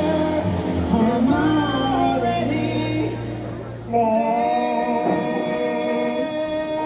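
Music: a song with singing over held chords, dipping briefly before a new chord comes in about four seconds in.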